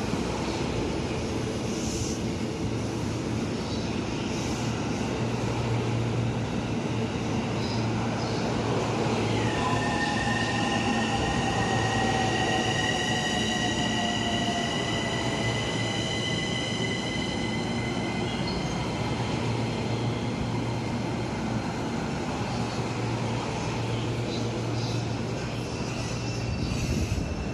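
E233-3000 series electric train running slowly past with a steady rumble. About ten seconds in, a high whine starts and holds for around ten seconds, together with a lower tone that slowly falls in pitch.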